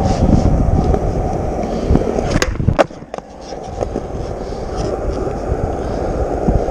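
Skateboard riding: the wheels rumble steadily as it rolls, with two sharp clacks of the board about two and a half seconds in, less than half a second apart, then the rolling builds again.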